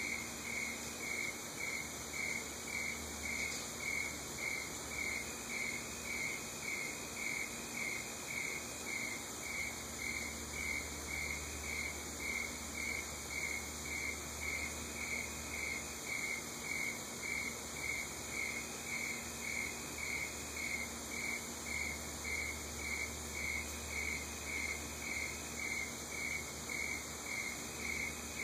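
A cricket chirping steadily on one pitch, about two chirps a second, over a high, steady insect hiss.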